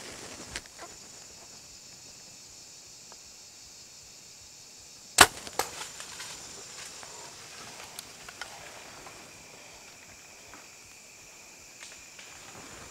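A compound bow shot about five seconds in: one sharp, loud snap of the string. Half a second later comes a second, smaller crack as the arrow strikes the whitetail buck, and a few light ticks follow as the deer bounds off.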